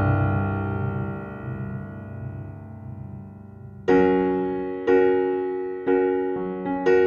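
Background piano music: a held chord slowly fading, then from about four seconds in a new chord struck roughly once a second.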